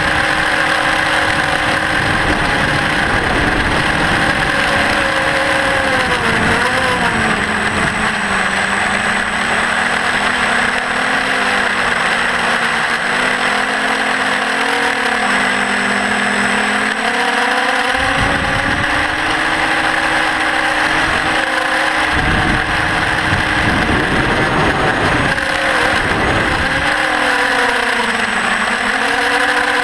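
Electric motors and propellers of a TBS Discovery quadcopter in flight, a steady whine whose pitch rises and falls as the throttle changes. A few low rumbles of wind on the microphone come about two-thirds of the way through.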